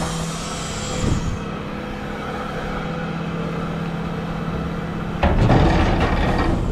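Refuse truck's Terberg hydraulic bin lift working at the rear of the truck, over a steady engine hum. There is a knock about a second in. About five seconds in it gets much louder as the lift raises and tips a wheelie bin into the hopper.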